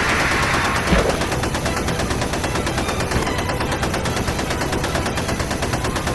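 Rapid, continuous gunfire like machine-gun fire, a dense stream of shots at a steady level, with a heavier thump about a second in.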